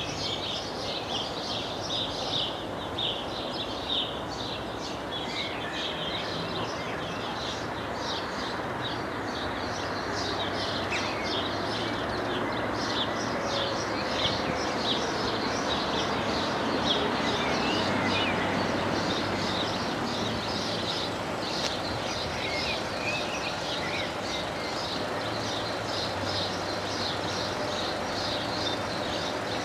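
Electronic bells of a closed TD96/2 level crossing ringing rapidly and regularly with a high metallic ding, over a low background rumble that grows a little louder around the middle.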